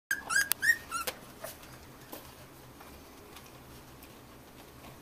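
Three-week-old beagle puppies giving a quick run of about five high squeaks and yelps within the first second. After that only faint, scattered light ticks and scratches are heard.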